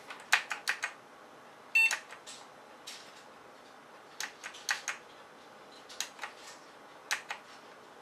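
Computer keyboard key tapped repeatedly in quick groups of three or four clicks, to get into the BIOS setup while the PC restarts. One short electronic beep sounds about two seconds in: the motherboard's POST beep.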